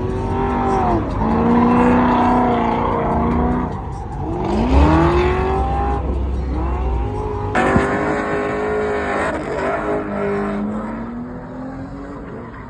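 Car engine revving hard in repeated rising-and-falling bursts as the car drifts around a cone course, its tyres squealing and smoking. The sound fades somewhat near the end as the car moves away.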